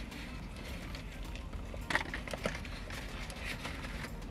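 Two people eating crispy fried chicken sandwiches inside a car: chewing and the paper sandwich bags rustling, with a sharp crackle about two seconds in and another half a second later, over a low steady hum.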